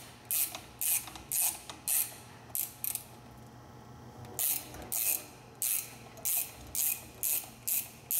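Ratchet wrench clicking in short back-and-forth strokes, about two a second with a pause around three to four seconds in, as it turns the fine-threaded forcing screw of a gear puller drawing an interference-fit motor coupler off an electric motor shaft.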